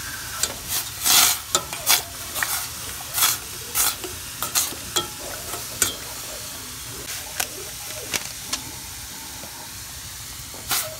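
Metal spoon stirring rice in water in a stainless steel pot, giving irregular scrapes and sloshes, thick in the first half and sparser later, over a steady hiss.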